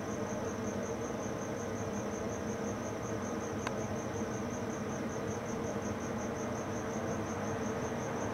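Crickets chirping: a high, steady, rapidly pulsing chirp with even spacing, over a low steady hum. A faint click about three and a half seconds in.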